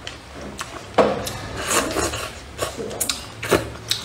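Close-up eating sounds: chopsticks stirring and lifting starch noodles in a paper cup of hot and sour soup, with mouth sounds from chewing. Sharp clicks and smacks come about a second in, near two seconds, and twice near the end.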